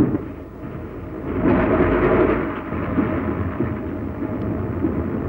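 Train running at speed: a steady rumbling noise that swells about a second and a half in, then settles.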